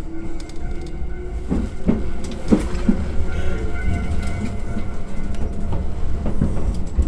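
Iyo Railway train running on the line: a steady low rumble with a faint whine, and a quick series of knocks as the wheels pass over rail joints about a second and a half in.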